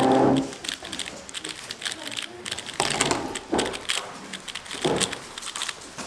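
Plastic 3x3 speedcube being turned very fast during a timed solve: a dense, irregular run of light clicks and clacks.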